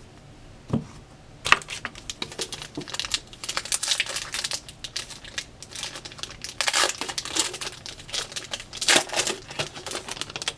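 Foil trading-card pack wrapper being crinkled and torn open by hand: a soft knock about a second in, then a long run of irregular crackles, loudest in a few clusters in the middle and near the end.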